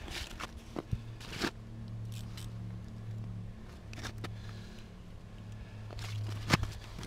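Boots scuffing and crunching on snow-covered ice as an angler shifts his stance while fighting a fish, with scattered short scrapes and a sharper one about six and a half seconds in, over a steady low hum.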